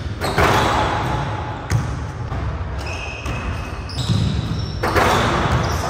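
A basketball bouncing on a hardwood gym floor, with short high sneaker squeaks. There are two louder bursts of noise, one just after the start as a dunk goes down and another near the end.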